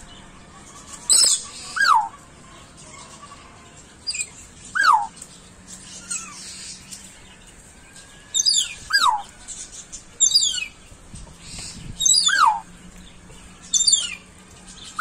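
An animal calling over and over, about every two seconds. Each call is a quick run of high, falling chirps followed by a lower falling whistle-like note.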